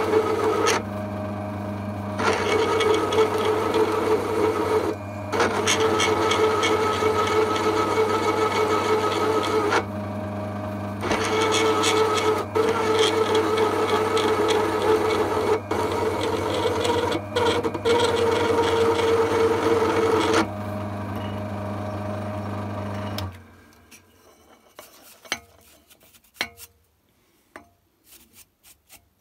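A drill press's motor hums steadily while a countersink cutter cuts into a metal bar in repeated spells of loud rasping, broken by short pauses where only the motor runs. The motor stops about 23 seconds in, leaving faint scattered clicks. The cut leaves the countersunk seats chattered, which the owner puts down to too steep a relief angle on the cutter.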